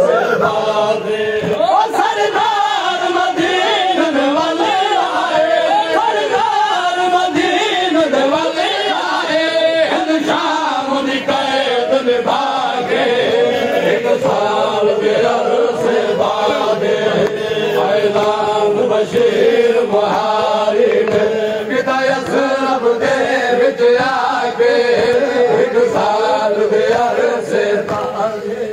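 A noha, a Shia mourning lament, chanted by a group of men in overlapping voices, the melody rising and falling without a break.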